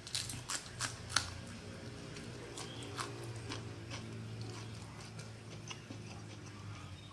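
A person chewing a mouthful of rice and fish sambal, with several sharp crunching clicks in the first second or so and fainter clicks after. A low steady hum runs underneath.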